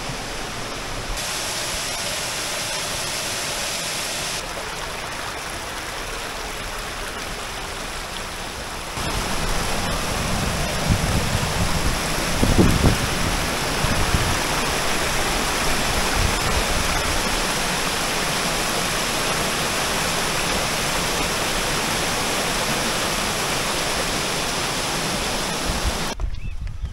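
Steady rush of a shallow rocky stream splashing over stones and small cascades, louder from about nine seconds in, with a few low thumps around twelve seconds in.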